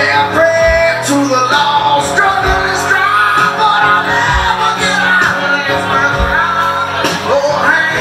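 Live country-rock band: a man singing over strummed acoustic guitar, with drums keeping a slow beat.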